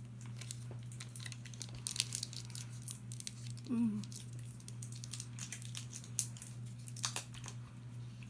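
Paper candy wrapper crinkling and crackling in irregular bursts as Starburst Duos chews are unwrapped, with a brief appreciative 'mmm' about four seconds in.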